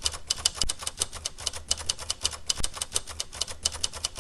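Rapid, even typewriter-style key clicking, about ten clicks a second, over a faint low hum.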